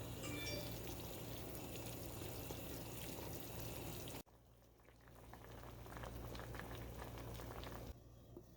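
A pot of palm butter soup boiling, a faint steady bubbling with small pops. It breaks off abruptly about four seconds in, then comes back.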